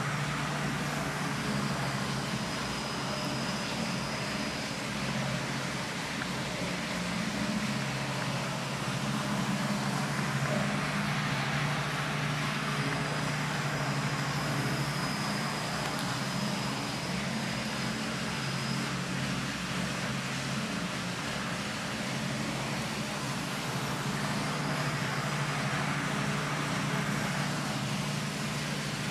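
Steady low mechanical hum under an even rushing noise, with a faint thin high whine coming and going.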